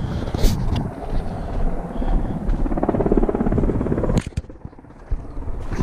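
Wind buffeting the microphone, a steady low rumble, with a few sharp clicks; the rumble drops away for about a second around four seconds in.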